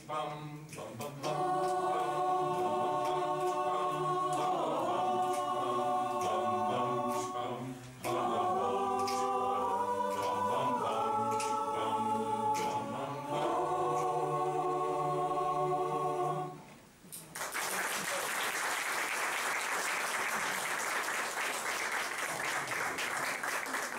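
Mixed choir of men and women singing a cappella in held chords, phrase by phrase with short breaths between. The song ends about sixteen seconds in and the audience applauds.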